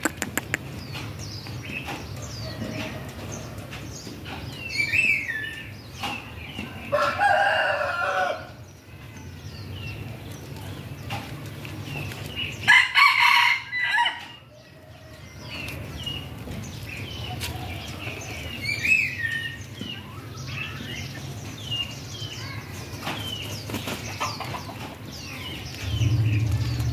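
Rooster crowing, once about seven seconds in and again about thirteen seconds in, among scattered short high chirps and clucks.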